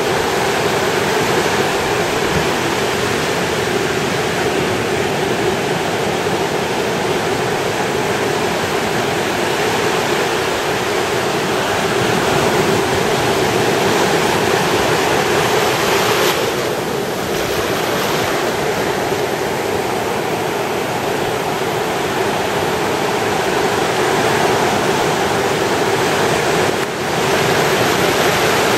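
Ocean surf breaking and washing up the beach, a loud continuous rush that eases briefly twice, about two-thirds of the way through and near the end.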